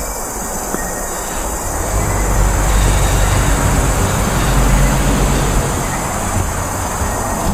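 A motor vehicle passing on a nearby road: a low rumble that swells about two seconds in and fades again after five seconds, over a steady hiss.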